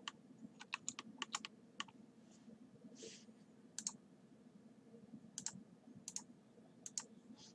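Faint, irregular clicks of a computer keyboard and mouse, a dozen or more short taps spread unevenly, some in quick pairs.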